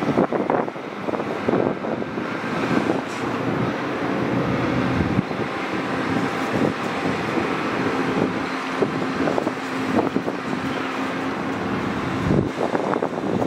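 Caterpillar 390FL excavator's C18 diesel engine running under load as it works a clamshell dredge bucket up out of the water, with wind buffeting the microphone. A faint steady hum runs through the middle and stops about a second before the end.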